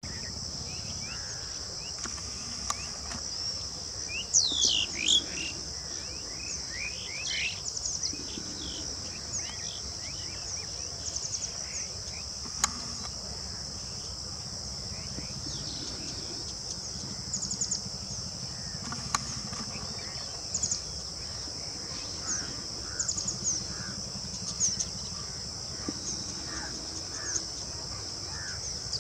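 A steady, high-pitched drone of insects, with birds calling over it: a loud run of falling whistled notes about four seconds in, then scattered short chirps and quick runs of notes.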